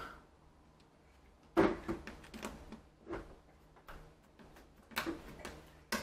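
Plastic clicks as the Samsung Galaxy S4's inner back frame is pressed onto the phone and its clips snap into place: several separate sharp clicks over a few seconds, the first the loudest.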